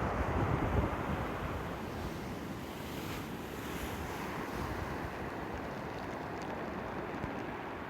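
Pacific Ocean surf with a steady wash of breaking waves. Wind buffets the microphone in the first second, then eases.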